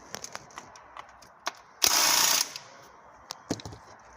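Hand ratchet clicking in short runs on an 8 mm bolt at the engine, with a brief loud hiss about two seconds in.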